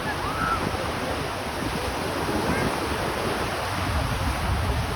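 Wind blowing on the microphone over a steady wash of waves on open water.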